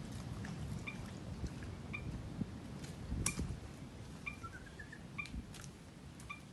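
Small birds calling: a short sharp chirp repeated every half second to a second, and a quick rising run of notes about halfway through, over a low rumble.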